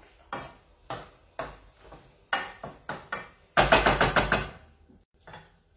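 Wooden spoon stirring pasta in a frying pan, knocking against the pan about twice a second. About three and a half seconds in comes a quick run of louder rapid knocks.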